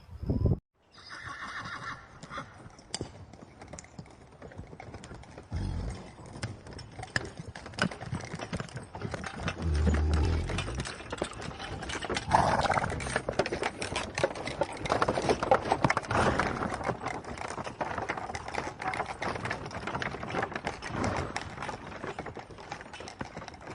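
A horse whinnying several times, with many sharp clicks and knocks throughout that fit hooves clip-clopping.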